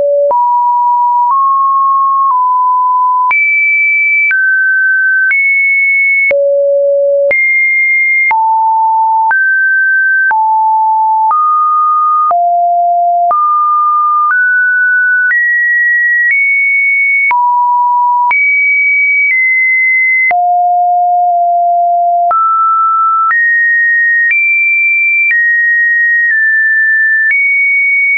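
A run of pure electronic sine-wave beeps: one steady tone at a time, jumping without a break to a new, random-seeming pitch about once a second, from fairly low to high. These are computer-generated test tones.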